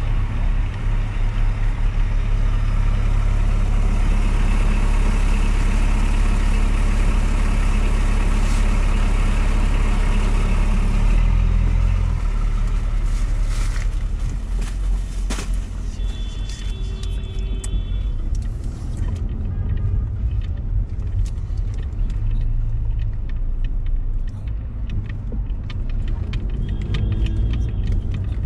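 A car driving through city traffic with a steady low rumble of engine and road noise, easing a little about halfway through. There are scattered clicks, and a few short high-pitched tones come a little past the middle and again near the end.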